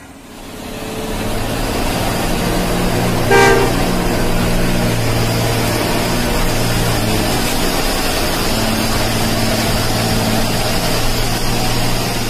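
Truck engine running steadily, fading in over the first second or two, with one short horn toot about three seconds in.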